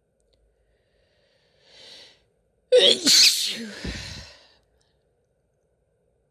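A woman takes a short, faint breath in about two seconds in, then gives one loud, voiced sneeze a little under three seconds in that trails off over about a second and a half.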